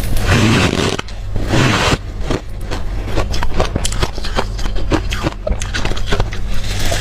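Hard, deep-freezer crushed ice being chewed close to the microphone: a rapid, irregular run of sharp, squeaky crunches and scraping crackles.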